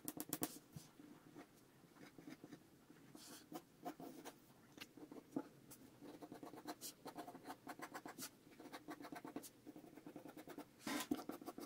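Mechanical pencil strokes scratching on drawing paper, faint, short and irregular, with a denser flurry of quick strokes near the end.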